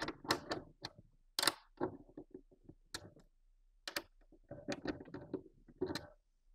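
Irregular clicks and light taps of a 5 mm Allen key working the mount bolts on a plastic antenna mount as they are snugged down.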